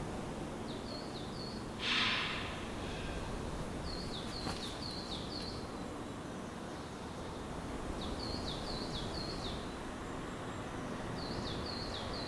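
A small bird repeats a short phrase of three or four quick, high, falling notes about every three to four seconds over a steady background hiss of ambient noise. A brief rushing hiss about two seconds in is the loudest sound.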